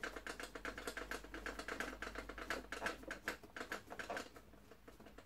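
Screwdriver driving a Phillips screw into the vacuum cleaner's plastic hose carrier: a fast, even run of clicks, about seven a second, stopping about four seconds in.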